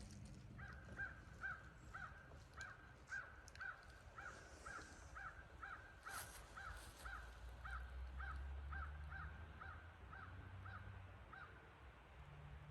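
A bird calling a long, even series of short, identical notes, about two or three a second, stopping near the end.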